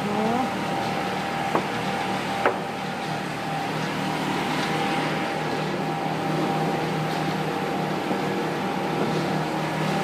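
Industrial multi-blade rip saw running with a steady machine hum. Two short sharp clicks come about a second and a half and two and a half seconds in.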